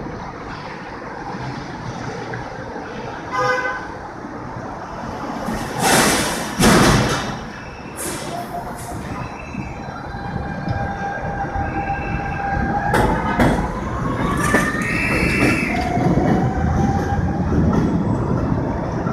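R160B subway train with Siemens propulsion at a station stop. There is a brief chime, then two loud bursts of noise about six seconds in. The train then pulls out, and its traction motors whine in tones that step and glide upward as it speeds up.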